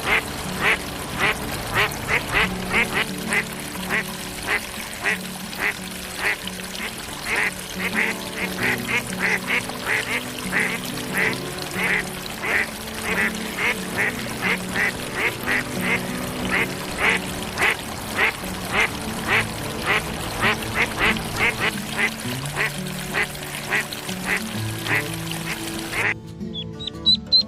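Ducks calling in a steady run of short calls, two or three a second, over background music with low held notes. A little before the end the calls stop abruptly and a chiming jingle begins.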